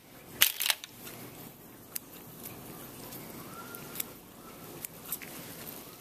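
Handling noise of steel dissecting scissors and gloved hands over a metal dissecting tray: a brief clatter about half a second in, then scattered light clicks.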